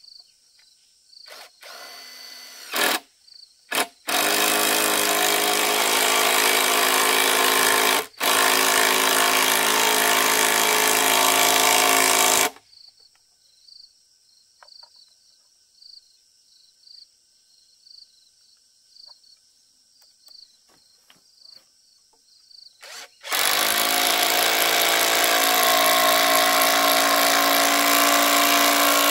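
Cordless drill driving screws into timber in two long runs: the first with a short stop partway, the second starting about two thirds of the way in. Insects chirp faintly in the gaps.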